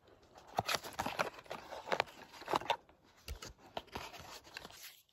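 Small cardboard box being opened by hand: an irregular run of crackles, scrapes and tearing as the flaps and paper inside are pulled open. The sound cuts off abruptly near the end.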